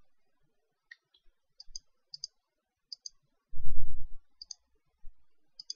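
Computer mouse buttons clicking about six times, most clicks a quick press-and-release pair. A brief low thump about three and a half seconds in is louder than the clicks.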